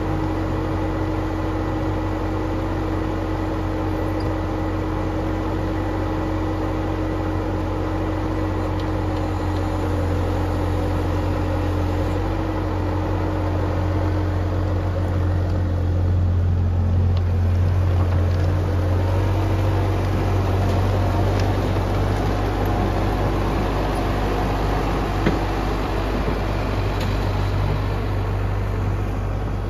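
Bobcat T190 compact track loader's four-cylinder diesel engine running steadily as the machine carries a pallet of concrete blocks, a strong low drone that grows louder about halfway through.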